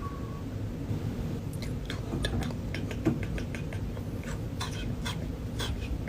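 A person making vocal sound effects with the mouth: a whistled note trails off at the start, then, from about a second and a half in, a quick irregular run of short clicks and squeaks.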